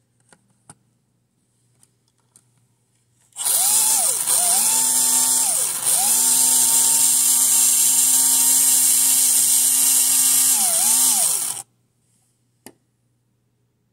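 Tyco HP7 HO slot car's small electric motor whining at high speed for about eight seconds under track power, with gear and wheel noise. Its pitch dips briefly three times as the power eases and comes back. A few light clicks come before it and one after.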